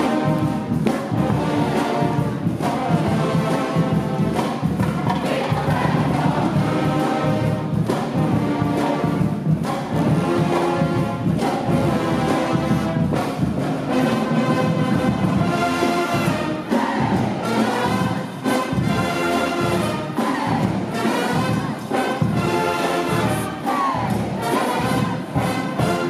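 Marching band playing a brass-heavy tune with a steady beat.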